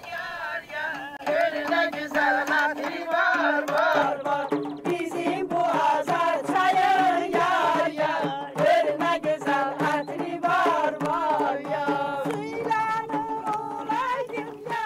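Folk song sung by women's voices to frame drums struck in a steady rhythm.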